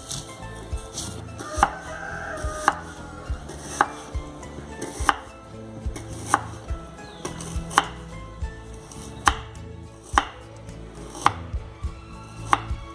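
Chef's knife slicing a white onion on a wooden cutting board, each cut ending in a sharp knock of the blade on the board, about one a second, a dozen or so in all.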